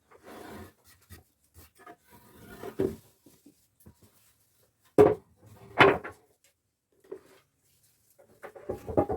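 Timber being handled on the bench: scraping and shuffling, then sharp wooden knocks, the two loudest about five and six seconds in, with a run of smaller knocks near the end.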